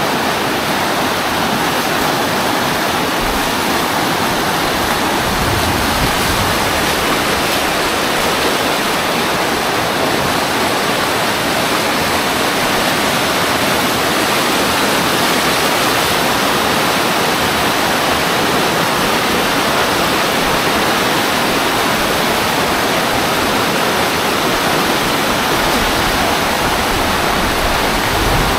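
Fast-flowing floodwater rushing down a street: a loud, steady wash of churning water.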